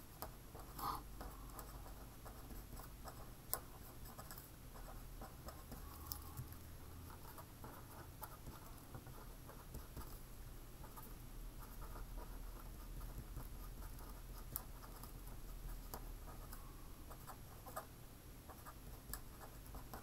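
Felt-tip pen writing on a sheet of paper: faint scratching strokes with a few light ticks.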